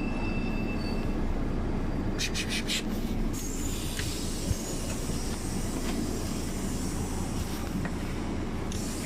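Steady rumble of a city bus under way, heard from inside the cabin, with a short clatter of rattling clicks about two seconds in and a single knock a little later.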